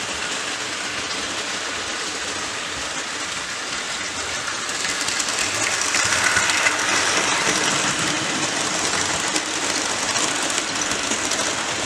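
HO-scale model train running on track: the steady whir and rolling of the Bachmann GS-4 steam locomotive and its coaches' wheels. It grows louder about five seconds in as the coaches pass close by.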